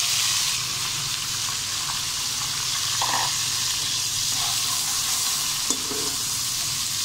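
Sliced onions sizzling steadily in hot ghee in a metal wok, stirred with a metal spoon that scrapes the pan, with a brief click near the end.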